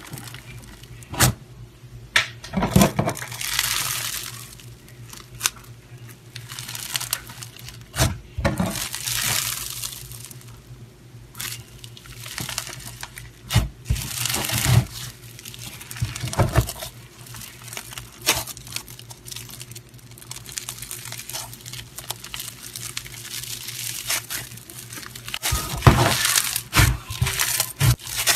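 White floam slime packed with foam beads being squeezed, poked and stretched by hand: a crunchy crackling of beads rubbing and popping, with sharp clicks and louder bursts of crackle every few seconds, the loudest near the end.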